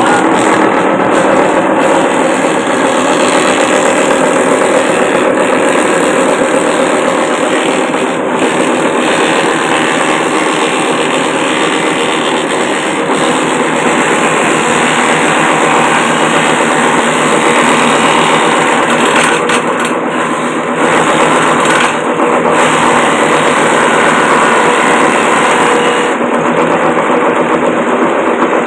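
Homemade wooden chopper machine, driven by a water-pump electric motor, running loudly and steadily as grass is fed in and cut up by its spinning blades.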